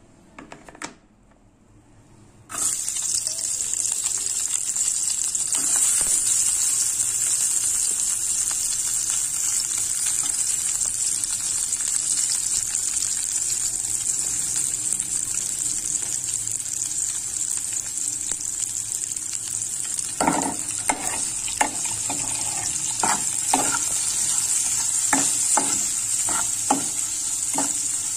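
Sliced onions sizzling in hot oil in a metal pan. The sizzle starts suddenly a few seconds in and then holds steady. In the last third, a metal spatula scrapes and taps against the pan a dozen or so times as the onions are stirred.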